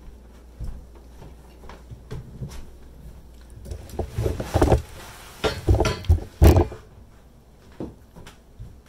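Scattered light knocks and clatter of things being handled on a wooden table, with a cluster of louder knocks and thumps between about four and six and a half seconds in.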